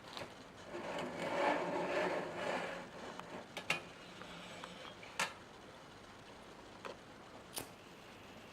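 Small parts being handled at a workbench: a couple of seconds of scraping or rubbing, then a few separate sharp clicks several seconds apart.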